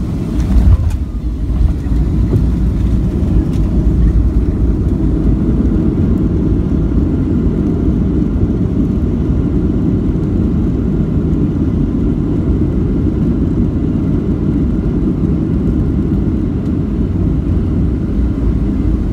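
Boeing 737 airliner touching down, with a jolt under a second in, then a steady loud rumble of wheels and engines as it rolls out on the runway, heard from inside the cabin.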